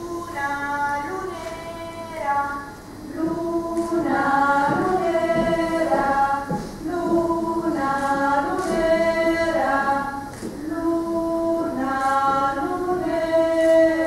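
A small group of voices singing a slow melody unaccompanied, in held notes that move in steps, growing fuller and louder about four seconds in.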